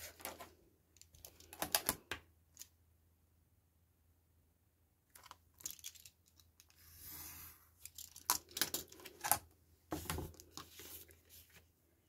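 Snap-off craft knife drawn along a clear ruler, slicing through paper with a soft hiss about a second long, some seven seconds in. Around it come scattered clicks and rustles of the ruler, knife and paper being handled.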